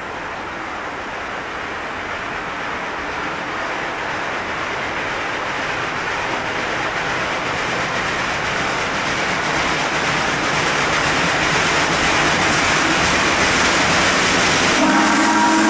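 Steam locomotive No. 734, a 2-8-0, approaching unseen, its working noise a rushing sound that grows steadily louder. Near the end its steam whistle starts to blow.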